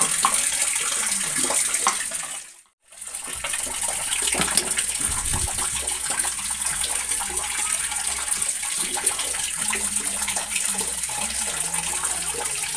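Steady hiss of running water, like a tap left running. It cuts out completely for a moment about two and a half seconds in, then carries on unchanged.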